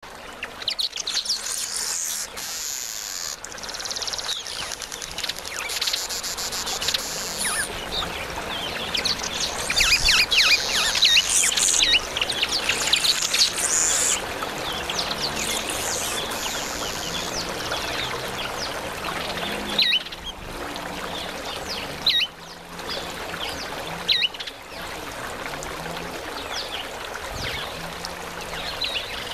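Two male masked weavers (Ploceus velatus) chattering: a dense run of rapid high-pitched notes, busiest in the middle, then a few separate sharp calls, each falling in pitch, about two seconds apart.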